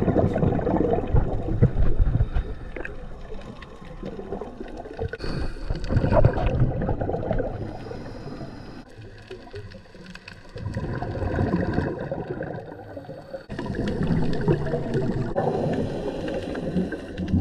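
Muffled gurgling of water and air bubbles from a scuba diver's gear underwater, in several short stretches that change abruptly in loudness.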